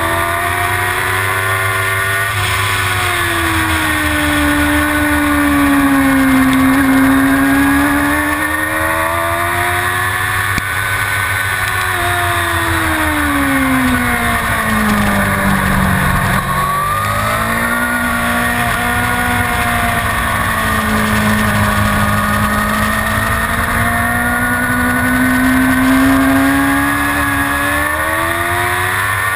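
Suzuki GSX-R750 inline-four engine running hard at racing revs, its pitch rising and falling continuously as the bike is ridden around the track. About halfway through the pitch drops steeply, then climbs back up and holds high.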